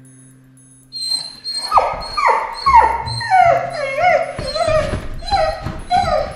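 Golden retriever puppy whining and crying in a rapid series of short cries, each sliding down in pitch, starting about a second in, over background music. It is crying at being left behind, a sign of separation anxiety.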